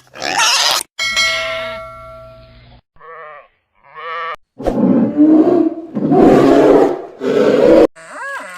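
A run of different farm-animal calls, one after another: a ringing tone, then two short wavering bleats, then three loud harsh calls.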